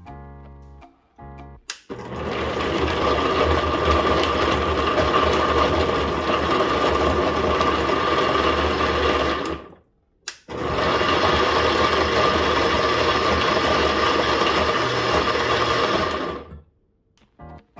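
Countertop blender motor running at high speed, blending berries and liquid into aronia juice with a grinding, rattling 'gagaga' noise. It runs about eight seconds, stops for a moment, then runs again for about six seconds.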